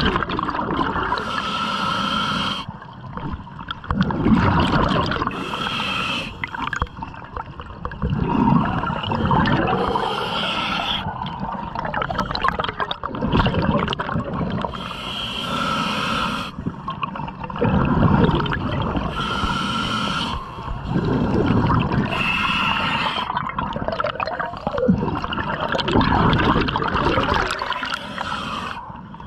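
Scuba diver breathing through a regulator: a hiss on each inhale, followed by gurgling exhaled bubbles, repeating roughly every four seconds, about seven breaths.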